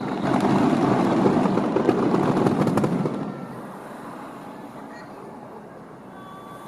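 Fireworks going off in a dense crackling volley that starts suddenly, lasts about three seconds, then dies away.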